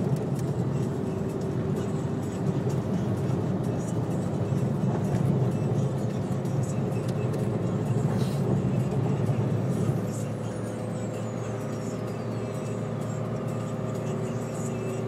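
Steady engine and road rumble heard from inside a small car, a Suzuki Alto, cruising on a highway, with music playing over it.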